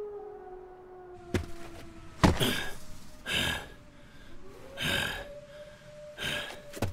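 A man's heavy, ragged breathing, about five loud breaths roughly a second and a half apart, from an exhausted beast-man warrior leaning on a tree. Under it a few held tones of a soft musical drone sink slowly, and a sharp knock comes a little after two seconds in.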